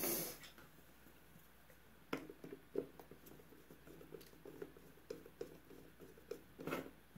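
Faint clicks and taps of small metal outboard-carburetor parts being handled and fitted into the carburetor body by hand, after a brief scraping rustle at the very start.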